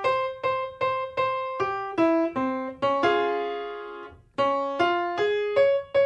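Piano playing a vocal warm-up pattern of single notes stepping up and down, about two and a half notes a second. A held chord about three seconds in comes before the pattern starts again.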